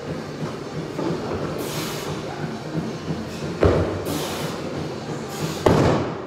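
Loaded barbell clean and jerk at 55 kg, with two heavy thuds about two seconds apart. The second and louder thud comes as the bar comes back down to the floor.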